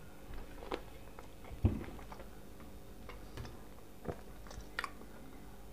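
A person chewing food close to the microphone, with scattered wet mouth clicks and smacks. One louder dull knock about a second and a half in.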